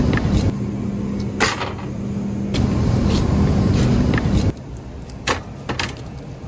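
Metal shopping cart rolling on a hard store floor: a steady rumble from the wheels with rattling clicks from the wire basket. About four and a half seconds in the rumble stops, and a few more clacks follow.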